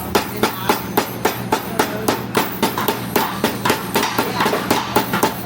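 Hammer blows on metal in a quick, even rhythm, about three strikes a second, over a steady low hum.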